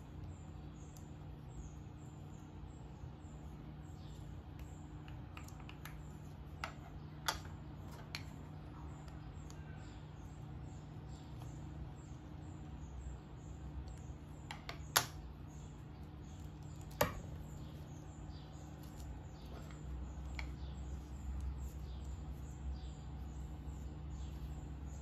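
Small plastic clicks and taps as a Nendoroid figure is handled and pressed onto its clear plastic display stand, with a few sharp clicks standing out over a steady low hum.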